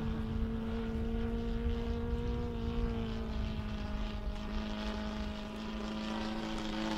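Radio-controlled model airplane flying overhead, its small engine and propeller giving a steady buzzing drone. The note shifts about halfway through as the throttle or distance changes.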